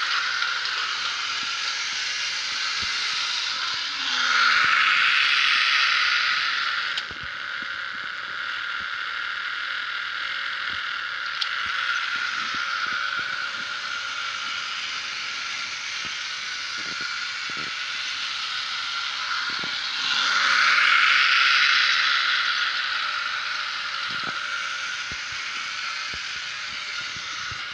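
Model CC 40101 locomotive running on its track: a steady whirring of its electric motor and wheels on the rails, with scattered light clicks. It swells loud twice as the train passes close by, about four seconds in and again about twenty seconds in, and drops off suddenly about seven seconds in.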